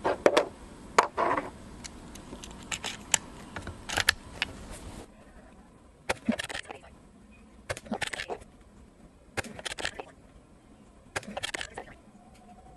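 Sharp clicks and knocks from working a Gamo Arrow .22 PCP air rifle during a full-to-empty shot string. There is a louder clatter of handling in the first second or so, then four short clusters of clicks about a second and a half apart.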